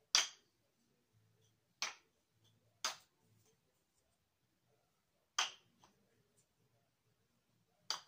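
Wooden balero (cup-and-ball toy) clacking as its wooden barrel knocks against the stick, five sharp clacks at uneven intervals.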